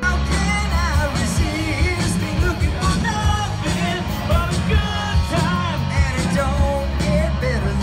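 Live rock band playing, a lead singer's voice over a full band with a steady beat.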